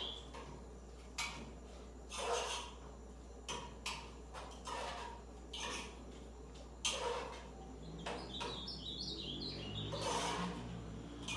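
Ultramarine grosbeak (azulão) singing one short phrase of stepped whistled notes about three-quarters of the way through, among scattered sharp knocks and brief rustling swishes.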